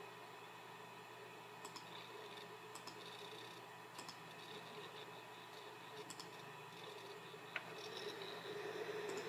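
Computer hard drive running with a steady hum, broken by irregular sharp seek clicks and short high chirps a second or two apart, as it reads while a program or file is opened. The hum grows louder near the end.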